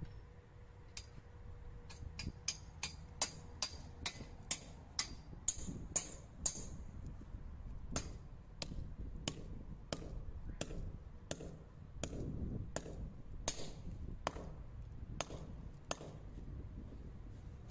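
Hammer driving a steel masonry nail into a plastered wall: a quick run of sharp metallic strikes, about three a second, then after a short pause a slower, even run of about one and a half strikes a second, many with a brief high ring. The hammering stops about two seconds before the end.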